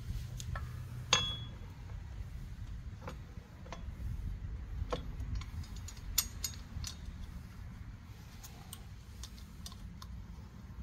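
Scattered metallic clicks and clinks of a hex key and bolts against a bicycle chainring and crank while a narrow-wide chainring is being fitted. The sharpest clink comes about a second in, with a brief ring, and another cluster of clicks comes around six seconds in, over a low steady rumble.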